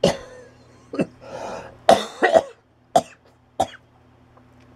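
A man coughing in a fit of about six sharp coughs spread over some four seconds, breaking off his speech.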